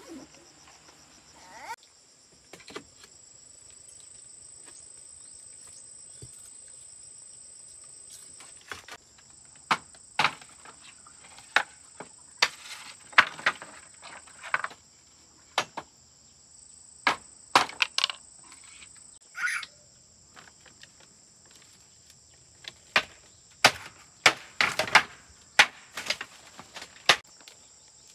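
A steady high insect drone runs under irregular sharp knocks and clatter of bamboo: handling and footsteps on a slatted bamboo platform. The knocks come in scattered clusters, thickest in the second half.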